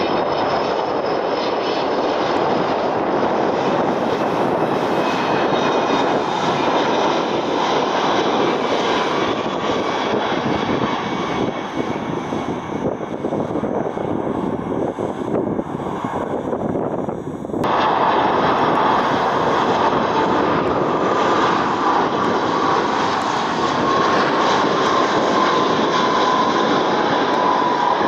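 Twin-engine jet airliners on final approach: a steady engine roar from a United Boeing 767 passing low, then, after a sudden cut about two-thirds of the way in, a Jet2 Airbus A330 approaching with a clear engine whine that sinks slowly in pitch over the roar.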